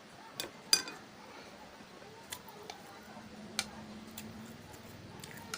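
A person eating instant noodles: several sharp clicks and taps, the loudest about three-quarters of a second in and a few more spread through, with soft mouth sounds between.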